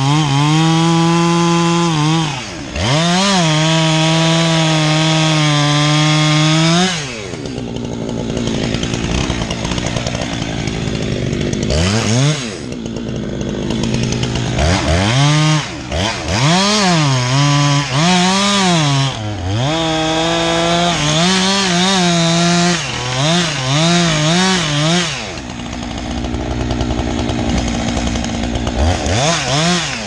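Two-stroke chainsaw held at full throttle for several seconds, then dropping back toward idle. It is revved up and let down repeatedly in quick succession before settling lower again near the end.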